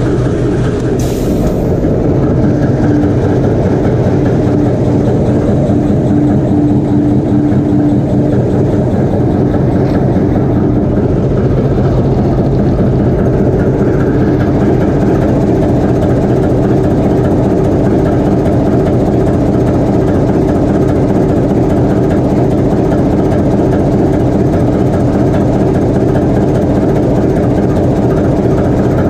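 Loud, steady running of a TEM2UM shunting locomotive's turbocharged diesel engine, held under load during a post-repair load test.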